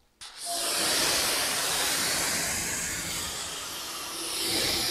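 Pressure washer spray hissing steadily as it rinses foam off a car's windshield, starting about half a second in after a brief pause.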